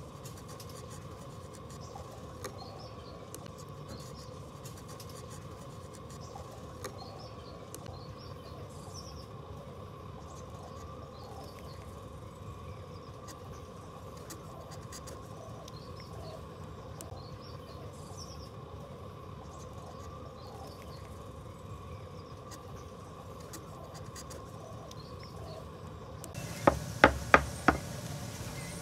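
Steady low workshop background with faint high chirps. Near the end, four sharp wooden knocks in quick succession as a wooden log is handled on a wooden workbench.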